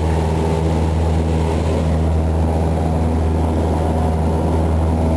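Single-engine light aircraft's piston engine and propeller running at steady power, heard from inside the cabin as a constant, loud low drone.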